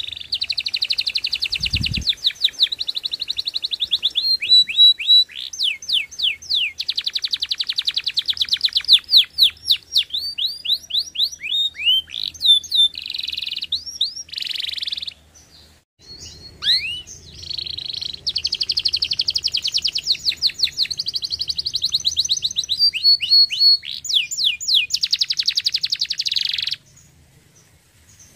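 Canary singing: long, rapid trills and rolls of repeated notes mixed with quick rising and falling whistles, breaking off briefly about halfway through and stopping shortly before the end. A brief low thump about two seconds in.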